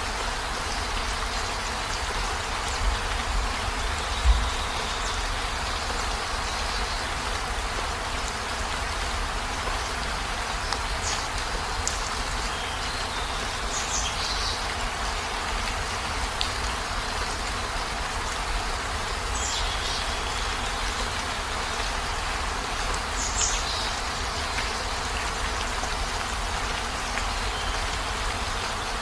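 Heavy rain falling in a steady hiss. A few short high chirps come through it now and then, and two low knocks sound a few seconds in.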